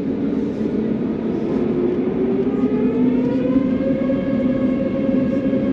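Airbus A321 jet engines spooling up, as for takeoff, heard from inside the cabin: a steady low rumble with a whine that starts rising in pitch about two seconds in and keeps climbing.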